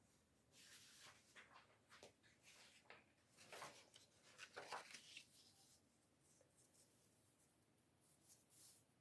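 Near silence with faint, irregular rustling and scratching, a little louder a few seconds in.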